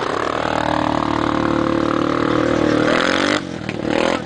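TGB Outback 425 ATV engine with an MRP aftermarket exhaust accelerating away, its pitch climbing steadily for about three seconds. The engine sound then drops off sharply as the quad pulls into the distance.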